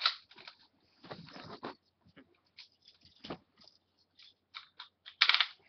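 Intermittent small plastic clicks, rattles and scrapes from a Beyblade spinning top and its launcher being handled, with a denser run of clicks near the end.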